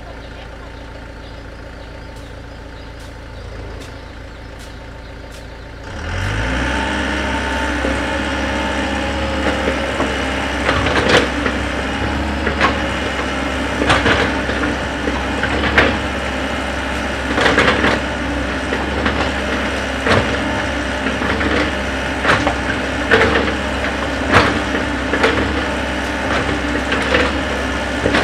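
Komatsu wheeled excavator's diesel engine running low at first, then revving up about six seconds in and holding under load. The bucket digs into the earth and stones with repeated sharp scrapes and knocks every second or two.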